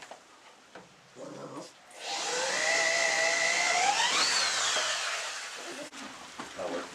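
A power drill running for about four seconds with a steady motor whine, whose pitch climbs sharply near the end and then winds down as it is let off.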